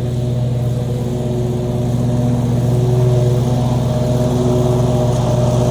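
An engine idling steadily, a little louder from about two seconds in.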